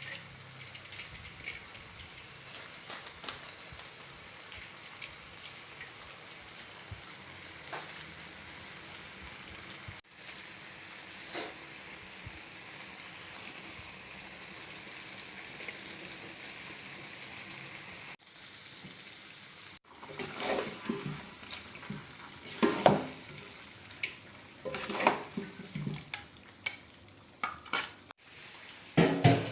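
Chicken sizzling and frying in a large wok, a steady hiss; in the last third it is stirred with loud, irregular strokes of a utensil scraping and clattering against the wok.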